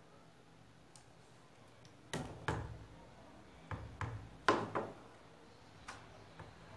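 A series of about eight short knocks and clicks, starting about two seconds in, as hard objects are handled and set down on a hard surface.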